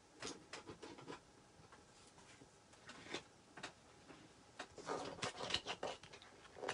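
Light taps and rustles of plastic stencil transfer sheets being handled and laid on a wooden sign frame, with a denser run of them about five seconds in.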